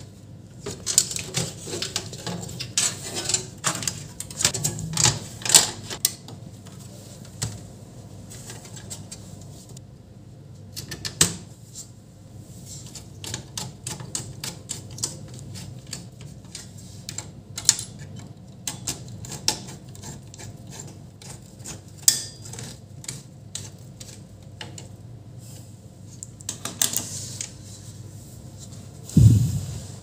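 Irregular clicks, taps and light rattles of a motherboard, CPU cooler and cable connectors being handled and fitted inside a steel desktop PC case. A dull thump near the end.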